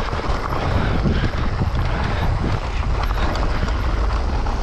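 Mountain bike riding downhill over loose gravel and rock: continuous tyre crunch and rattle of the bike, with wind buffeting the microphone.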